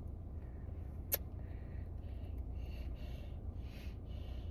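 Steady low road rumble inside a car, with one sharp click about a second in and faint soft rustling after it.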